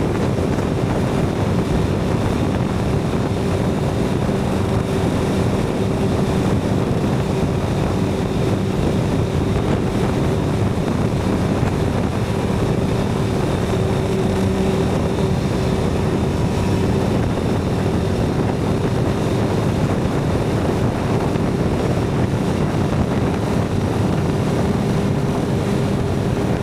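Suzuki GSX-R750's inline-four engine with a Yoshimura TRS exhaust, running at a steady speed under way, its pitch holding even with no revving, mixed with wind rushing over the microphone.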